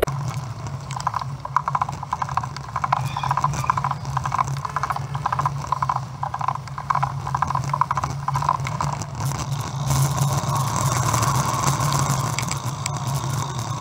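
Road bike's freewheel hub ticking rapidly as the rider coasts downhill, over a steady low rumble. From about ten seconds in, the ticking gives way to a steadier hiss.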